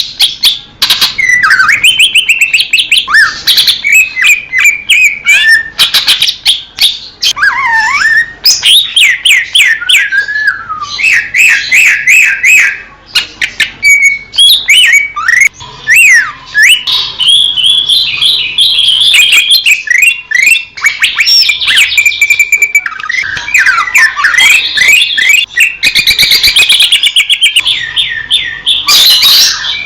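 Green leafbird (cucak ijo) singing a long, fast, varied song of whistles, chirps, sweeping notes and rapid trills, with hardly a pause.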